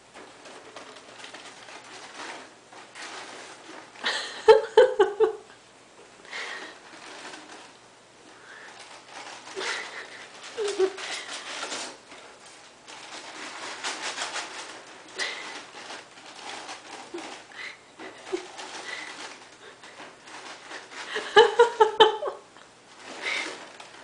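Gerbils scratching and rustling in the bedding of their tank, a patter of small scratches and clicks. It is broken twice, about four seconds in and again near the end, by a short bout of rapid pitched pulses, like laughter.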